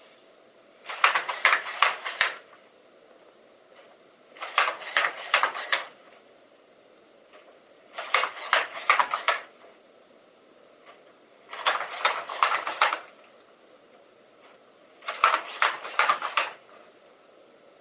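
Aldebaran NAO humanoid robot walking: its servo joints and feet clatter in bursts of rapid clicking about a second and a half long, roughly every three and a half seconds, five times over.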